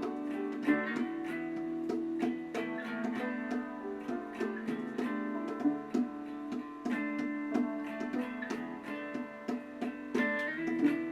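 Background music: a gently plucked acoustic guitar playing a steady pattern of notes.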